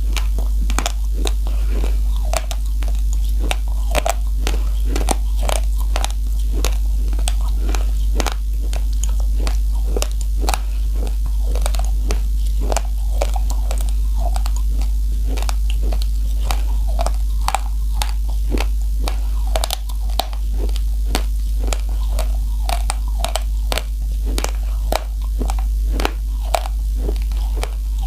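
Raw rice grains being bitten and crunched between the teeth close to the microphone: an irregular run of sharp cracks, several a second, with chewing in between. A steady low hum runs underneath.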